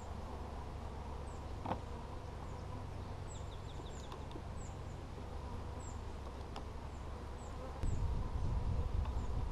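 Honey bees buzzing steadily around an open hive, with a sharp click about two seconds in and a louder low rumble near the end.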